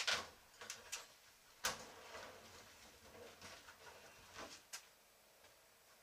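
A handful of sharp knocks and bumps with some scraping, as a hard plastic rooftop cargo box is shifted and lifted out of a pickup truck's bed.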